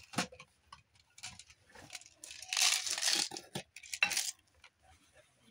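Gold screw lid being twisted off a clear jar of buttons: a rasping grind lasting about a second, then a sharp click about four seconds in as the lid comes free, with light clicks of handling around it.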